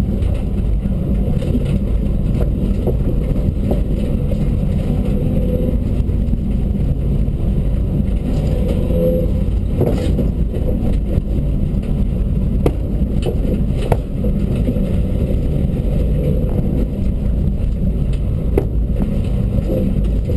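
Dacia Duster rally car heard from inside the caged cabin while driving hard: engine and road noise running steadily, with a few sharp knocks about halfway and again near the end.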